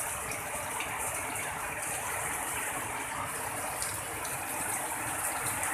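Heavy tropical downpour: a dense, steady hiss of rain.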